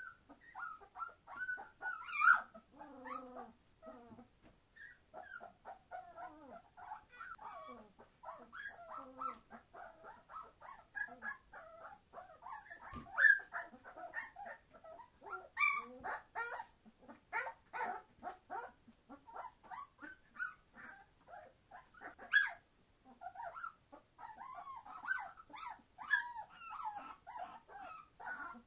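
A litter of three-week-old Entlebucher Mountain Dog puppies being very noisy: many short, high cries overlapping almost without a break, with a few sharper, louder ones standing out.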